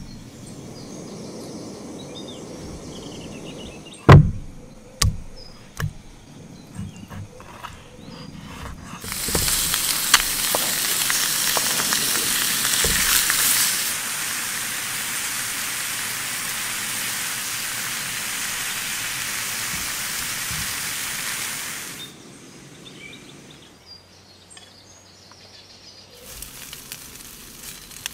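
Chunks of meat sizzling in a hot iron frying pan on a gas camping stove: a loud, even sizzle that starts abruptly about a third of the way in, drops a little partway through and cuts off, then comes back fainter near the end. Before the sizzle there are a few sharp knocks.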